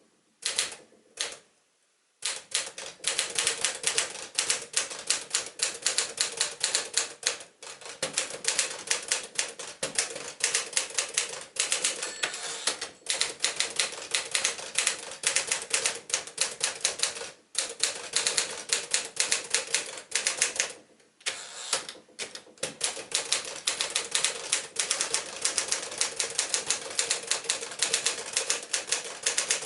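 Smith-Corona 5-Series manual typewriter, sold as the Tower Quiet-Tabulator, being typed on at speed: fast runs of key strikes broken by a few short pauses.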